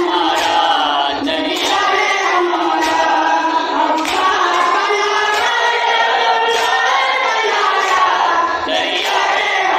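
A boy and a group of men chant a noha, a Shia lament, together without instruments. Slow, regular hand strikes keep the beat underneath, the chest-beating of matam.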